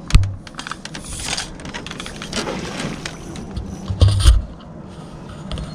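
Scraping and clattering handling noise, with a heavy thump at the very start and another short run of loud thumps about four seconds in.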